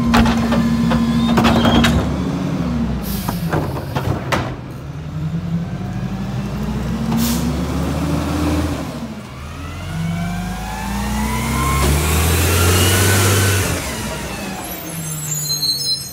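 CNG McNeilus rear-loader garbage truck: a few knocks from the cart tipper in the first few seconds, then the engine revs up twice as the truck pulls away and shifts gear. A hiss of air near the end as it slows, typical of air brakes.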